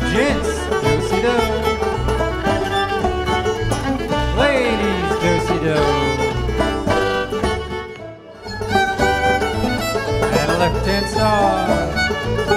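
Live old-time string band playing a contra dance tune, fiddle leading over banjo and guitar at a steady dance tempo. The music dips briefly about eight seconds in.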